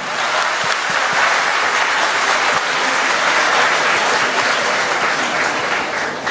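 Audience applauding steadily, the clapping thinning out slightly near the end.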